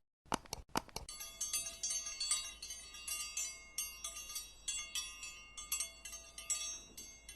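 Wind chimes tinkling: many high, ringing metal notes struck at irregular moments and overlapping, after a few sharp clicks in the first second.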